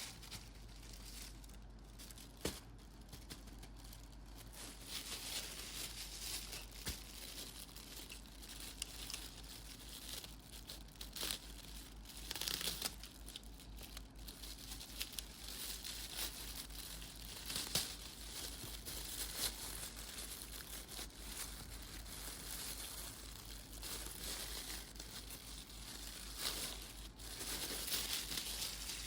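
Plastic packaging crinkling and tearing as items are unwrapped by hand, with occasional sharp clicks and taps.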